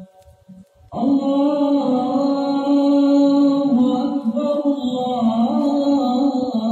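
A male voice chanting the adhan, the Islamic call to prayer. After a short pause, a new phrase begins about a second in and is drawn out as one long, ornamented held line.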